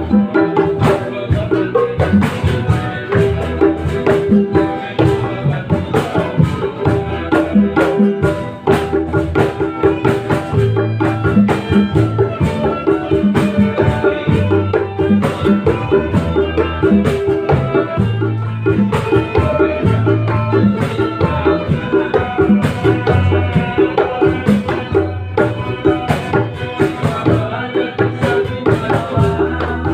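Band music with a kendang, the Javanese hand drum, playing a steady stream of strokes over sustained melodic notes.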